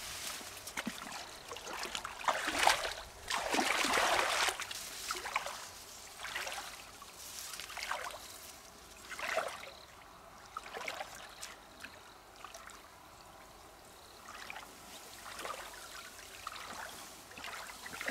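Water splashing and trickling in irregular swishes, loudest about three to four seconds in and quieter through the middle.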